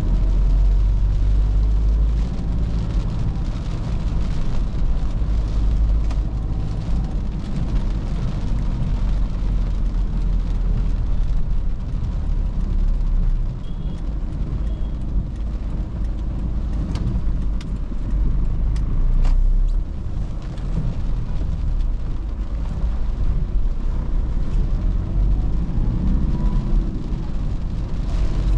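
A 2013 Toyota Fortuner's 3.0 L D4D four-cylinder turbo-diesel engine runs steadily under way, with tyre and road noise as a constant low rumble. A few sharp ticks come about two-thirds of the way through.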